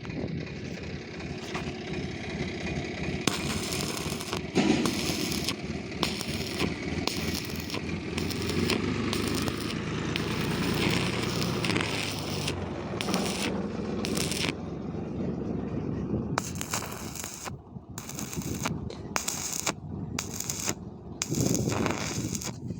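Electric arc welding: a steady, dense crackle of the arc, which breaks off and restarts several times in the last few seconds.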